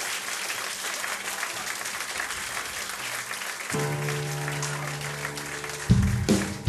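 Crowd applauding at a live concert; about halfway through a steady low note comes in and holds, and near the end the band starts with loud drums.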